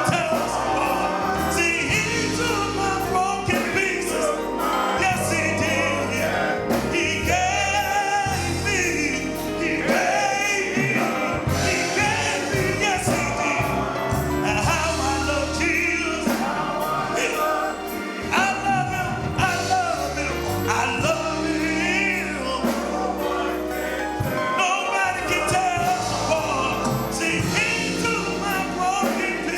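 Gospel music: a choir singing over a steady beat with bass and drums.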